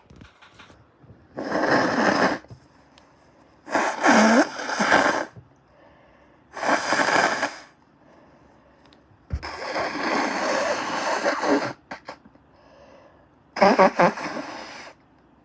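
A person with a heavy cold blowing their nose hard five times, each blow a wet, snotty rush of a second or two, the fourth the longest. The second and last blows have a honking, rattling tone.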